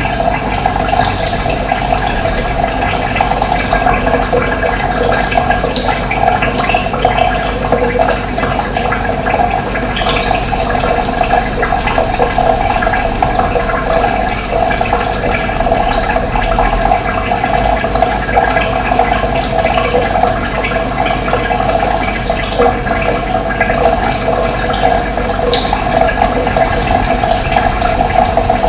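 Running water flowing steadily, a continuous splashing rush without a break.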